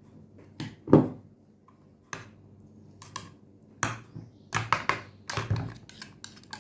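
Metal spoons clinking and scraping against each other and against an aluminium saucepan while chocolate spread is scooped off into the cream. Irregular sharp clicks and knocks, the loudest about a second in and a quick run of them around the fifth second.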